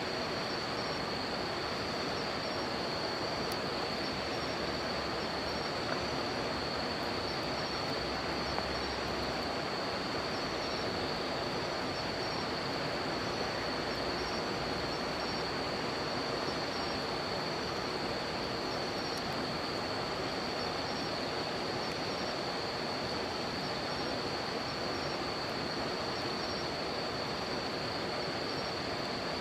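River water flowing with a steady rush, under insects: one trills in a continuous high-pitched drone, and a second chirps in a regular pulse just above it. A campfire gives a couple of faint pops.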